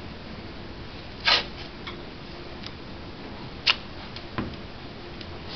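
White athletic tape being torn into a strip: three short, sharp rips and clicks, the first about a second in and the loudest a little past the middle.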